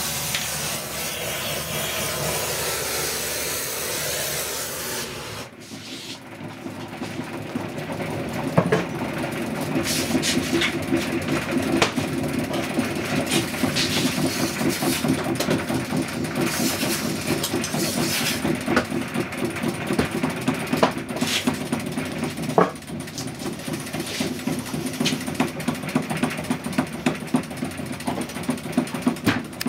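A gas torch hisses steadily on molten sterling silver in the crucible, then cuts off abruptly about five seconds in. A spring-wound centrifugal casting machine's arm then spins, a rhythmic pulsing whir with scattered clicks, as it flings the molten silver into the lost-wax flask.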